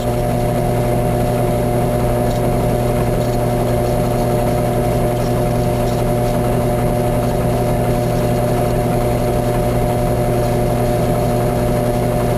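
Drill press running at a steady speed, a constant hum with several fixed tones, as a file is held against a spinning plastic Pinewood Derby wheel to shave it thinner, with a faint scraping under the hum.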